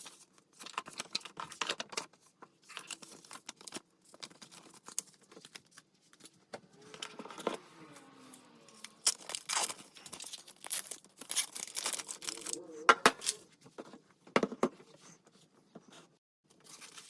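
MacBook Pro packaging being opened by hand: paper and wrapping tearing and crinkling in irregular short bursts.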